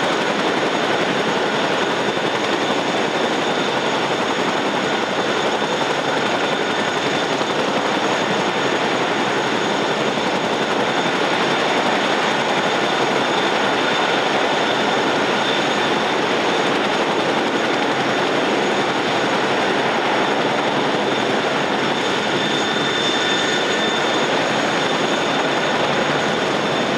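MH-47G Chinook running on the ground with both rotors turning: the steady rush of the blades with a high, constant turbine whine over it. Its engines are kept running while it is hot-refueled.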